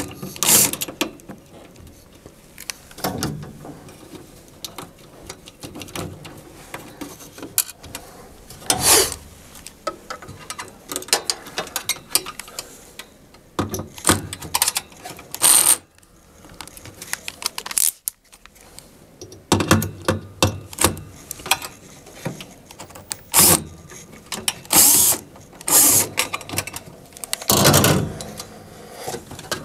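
Cordless drill-driver with a T20 Torx bit running in short bursts, backing out machine screws, with metal clicks and clinks from the screws, nuts and an open-end wrench between the bursts.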